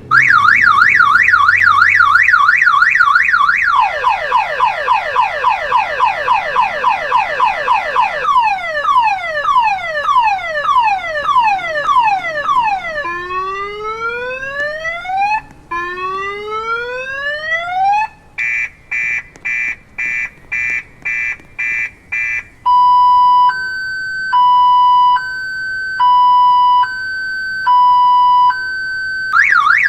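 Loud electronic car alarm siren cycling through its tone sequence: a fast warble, then rapid falling chirps, slower falling sweeps, rising whoops, quick pulsed beeps and a high-low two-tone. It starts the warble again at the very end.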